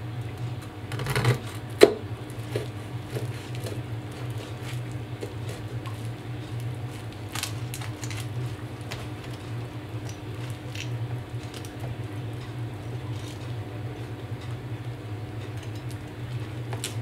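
Kitchen knife cutting through a baked quiche on a wooden chopping board, with a sharp knock just under two seconds in and scattered faint clicks and crunches of the pastry after. A steady low hum runs underneath.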